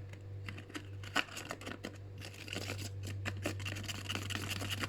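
Plastic spoon stirring a thick mix of shampoo and toothpaste in a bowl: quick, irregular scrapes and clicks of the spoon against the bowl.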